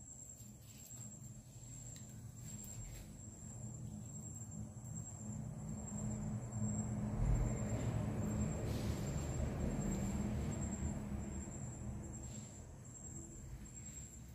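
A low mechanical hum that swells to its loudest about halfway through and then fades, with a thin steady high-pitched whine running under it.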